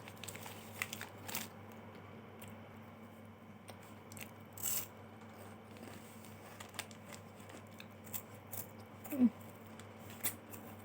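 Faint crunching and chewing as a Superstar chocolate wafer bar is bitten and eaten, heard as scattered small crackles and clicks.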